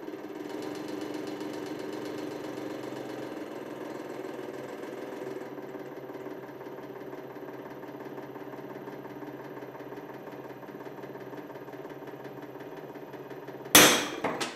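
Hydraulic press pump motor running steadily as the ram loads the handle of Knipex combination pliers. Near the end there is one sudden, very loud crack with ringing and a smaller knock just after, as the pliers give way and the jaws spring open under about 338 kg.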